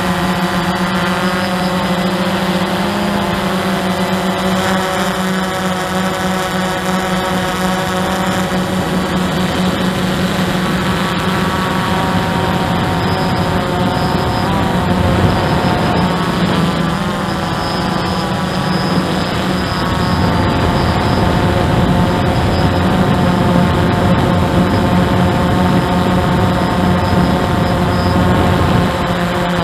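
Hubsan 109 quadcopter's motors and propellers whining steadily, heard close up through the drone's own camera. Its several tones waver in pitch about halfway through as the motor speeds change.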